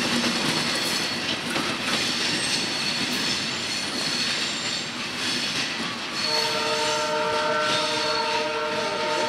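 Passenger train coaches rolling away over the track, their wheels clattering steadily at low speed. About six seconds in, a train horn starts: one long, steady chord of several tones that is still sounding at the end.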